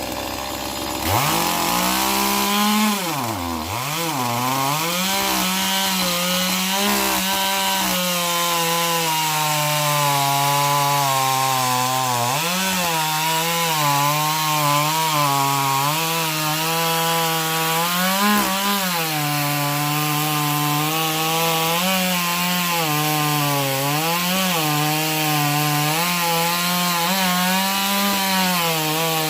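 A chainsaw running at high revs and cutting through wood. It starts up about a second in, and its pitch dips briefly now and then as it bogs under load.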